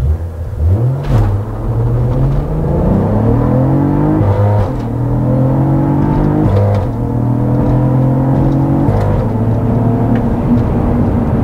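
Cadillac CT4-V Blackwing's 3.6-litre twin-turbo V6 accelerating hard at full throttle through the gears of its 6-speed manual. The engine note rises in each gear and dips briefly at each quick no-lift upshift, the first about four and a half seconds in.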